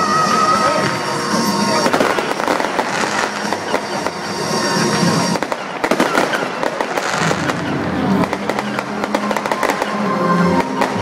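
Fireworks going off in quick succession: a dense run of crackles, pops and bangs with a brief lull just before six seconds in.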